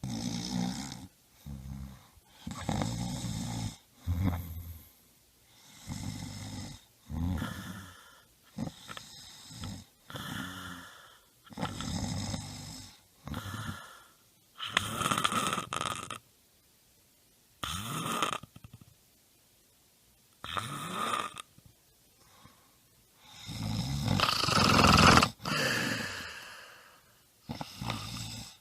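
Repeated noisy breaths, a second or two apart, each with a low buzzy rasp. The louder breaths come in the second half.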